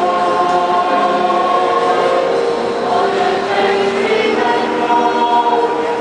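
A choir singing, several voice parts holding long notes together and moving to new chords every second or so.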